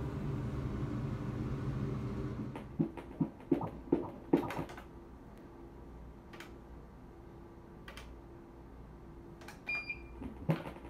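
A steady low hum that stops after about two and a half seconds, followed by a quick run of five or so knocks. Then the quiet hum of an ultrasound machine with a faint steady tone, a few scattered clicks, and one short high beep near the end.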